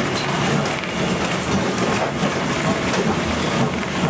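Remodelado tramcar running along its street track, heard from inside the wooden car: a steady rumble and rattle of the wheels on the rails and the body.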